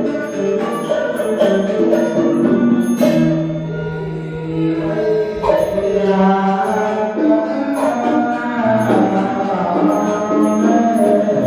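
Buddhist chanting: voices holding long sung notes and gliding between them, set to music.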